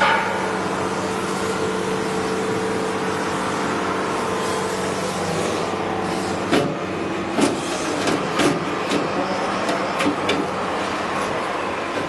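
Circular saw blade grinding machine running with a steady hum; from about halfway, a series of sharp, irregularly spaced clicks or knocks joins in.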